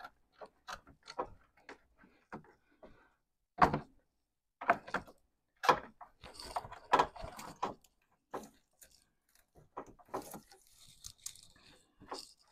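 Gloved hands working a rubber coolant hose onto the plastic coolant reservoir's outlet: scattered short knocks, clicks and rubbing of rubber and glove against plastic, at irregular intervals.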